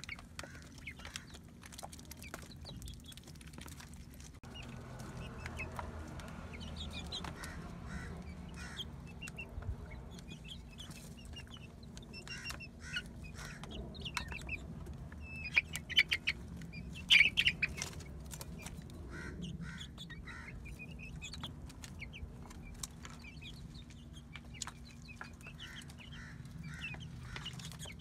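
Young chickens clucking and cheeping while they peck rice from a plastic tub, their beaks tapping out scattered sharp ticks. The calls come in short bursts and are loudest a little past the middle.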